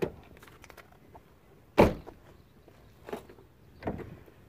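One sharp knock about two seconds in, with two fainter knocks later, from handling around the car's open rear door.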